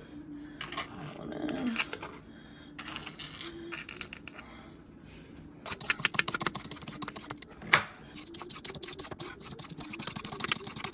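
Vegetable peeler shaving a carrot into ribbons: quick scraping strokes, densest in a run about six to seven and a half seconds in, with one sharper knock just before eight seconds.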